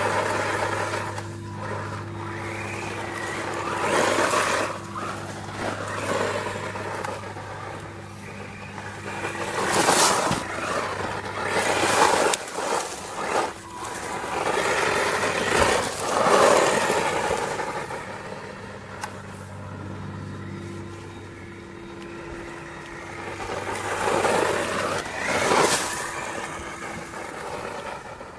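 A HAIBOXING 18859 1:18-scale RC monster truck driving: its electric motor whirs up in repeated bursts several seconds apart, with its tyres scraping over the ground. A steady low hum runs underneath.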